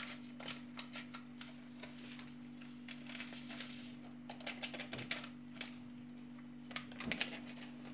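Small paper sachet of vanilla sugar crinkling and rustling in the fingers as it is opened and shaken out, a run of light clicks and crackles with a longer rustle about three seconds in. A steady low electrical hum runs underneath.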